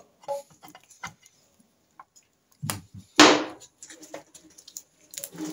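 Small metallic clicks and knocks of a clutch hub locking tool and parts being handled on a motorcycle clutch hub, with a louder knock a little past halfway.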